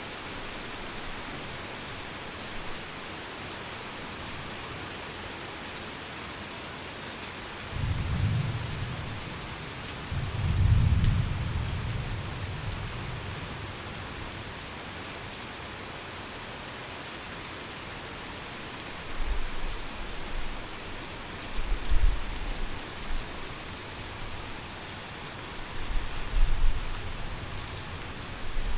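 Heavy rain falling steadily, with rolls of thunder: two low rumbles about a third of the way in, then a run of closer cracks and rumbles through the last third.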